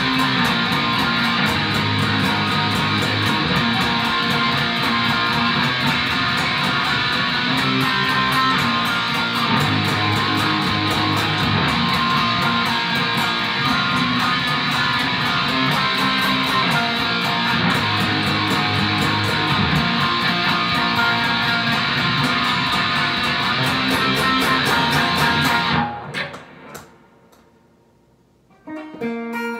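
Ibanez RG550 electric guitar through a Peavey Renown 400 amp, playing a rock guitar part with a steady beat underneath. About 26 s in the music stops suddenly and dies away to near silence. Near the end, held guitar notes ring out.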